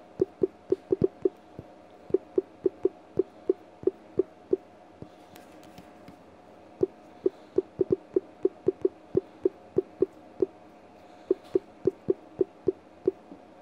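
Samsung phone's on-screen keyboard giving a short pitched click for each key press, in quick runs of typing with short pauses between them. A faint steady tone sits underneath.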